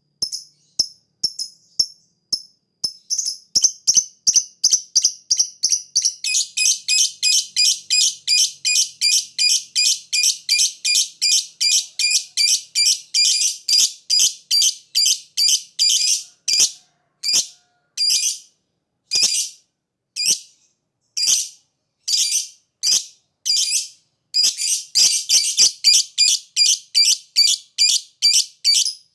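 Lovebird giving a long run of short, sharp, high chirps, about three a second, that spreads out to about one a second past the middle and speeds up again near the end. These are the rapid 'ngetik' (ticking) calls that keepers play to set other lovebirds calling.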